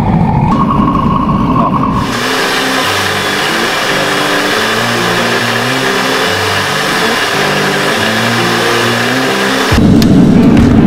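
Background music with a steady beat over workshop noise: a belt grinder's steady hissing grind from about two seconds in. Near the end a forge burner starts up with a loud low rumble.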